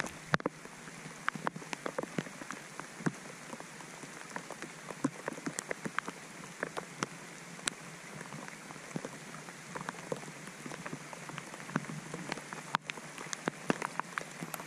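Rain falling on a lake's surface, an even patter dotted with many irregular sharp ticks of individual drops landing close by.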